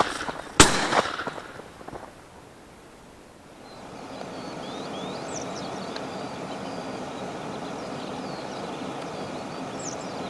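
A shotgun shot about half a second in, echoing as it dies away over the next second or so. After a lull, steady outdoor background noise with small birds chirping faintly.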